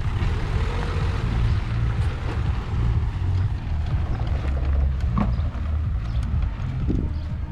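An SUV towing a small offroad camper trailer drives slowly over a dirt lot: a steady low vehicle rumble mixed with wind on the microphone. There is a light knock about five seconds in.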